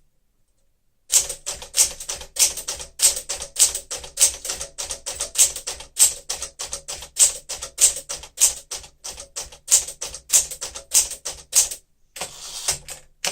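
1963 Smith-Corona Sterling manual typewriter being typed on: a steady run of typebar strikes, about four to five a second, beginning about a second in, then a brief denser mechanical clatter near the end.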